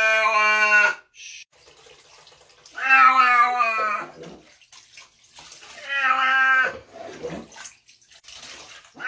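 Domestic cat yowling in protest at a bath: three long, drawn-out calls. The first ends about a second in, and the next two come around three and six seconds in.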